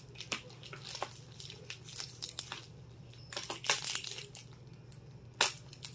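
Craft knife slitting and scraping through a plastic bubble mailer, with bursts of crinkling plastic and one sharp click near the end.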